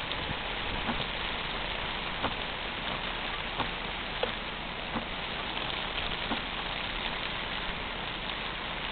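Steady rain falling, a continuous hiss with scattered sharp ticks of single drops hitting nearby surfaces.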